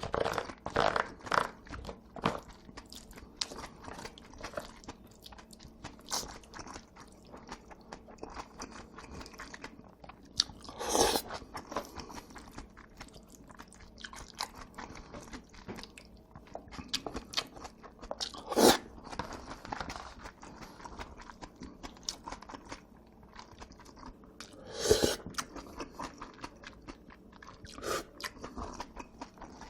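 A person eating noodles close to the microphone: chewing with many small wet mouth clicks and smacks, broken by three louder sounds spread through.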